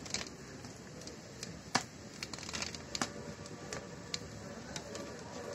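Wide pan of rasgullas boiling hard in sugar syrup over an open fire: a steady hiss with irregular pops and crackles, the sharpest about two and three seconds in.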